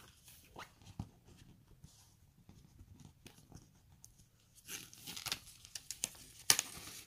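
Paper notebook inserts and their cover being handled: faint scattered ticks, then louder rustling and brushing of paper and card about two-thirds through, with a sharp rustle near the end.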